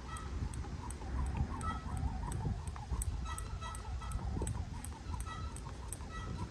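Wind buffeting the microphone, with a fast, even ticking of about three ticks a second above it.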